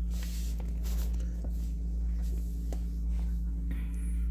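A steady low hum throughout, with light scratchy rustling and a few faint clicks, busiest in the first second.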